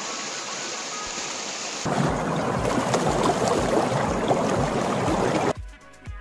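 Steady rushing rain noise, growing louder about two seconds in, over background music with a regular beat; the rain cuts off suddenly near the end, leaving only the music.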